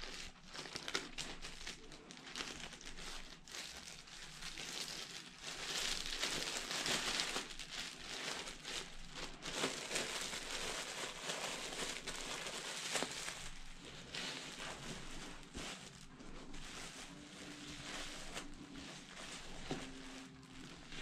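Plastic crinkling and rustling as a hot towel neck roll in its plastic wrapping is handled and tucked under a reclining client's neck, loudest in the middle stretch.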